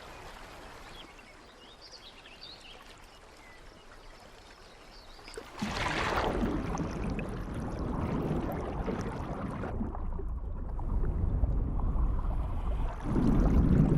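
Shallow mountain stream running over a gravel bed, soft at first; about halfway through the water noise suddenly grows louder and fuller, a rush and splash of water that carries on to the end.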